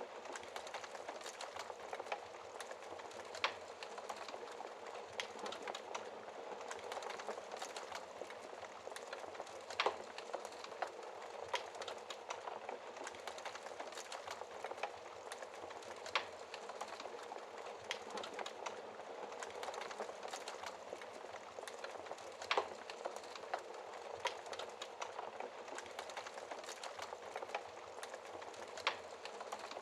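Wood fire crackling in a fireplace: a steady hiss of burning, with many small crackles and a sharper pop every few seconds.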